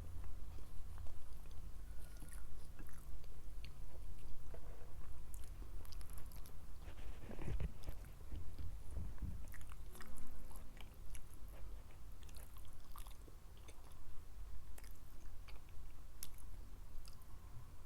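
Close-miked chewing and biting of food, with irregular wet mouth clicks and occasional crunchy bites.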